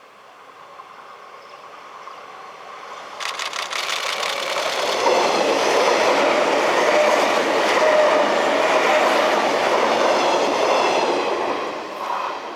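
Six-car 485 series electric multiple unit passing, growing louder as it approaches from about three seconds in, then running loud past for several seconds with its wheels clacking over the rail joints, and starting to fade near the end.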